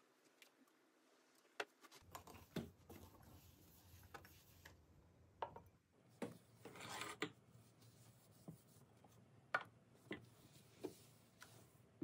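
Quiet handling noises: scattered light taps and clicks, with a short rustle about seven seconds in. In the second half these are potted plants being moved about on a tabletop.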